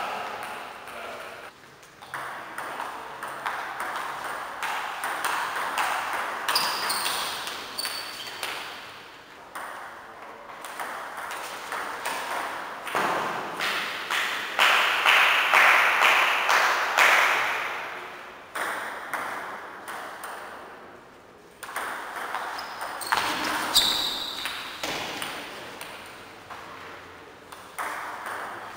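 Celluloid-style table tennis balls clicking and bouncing irregularly on table tops and the hall floor, with a few short high squeaks.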